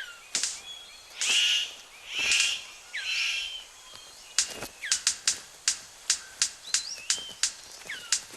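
Male superb bird of paradise courting a female: three harsh calls in the first few seconds, then from about halfway a quick, regular series of sharp clicks, about four a second, as he dances. Other forest birds whistle faintly underneath.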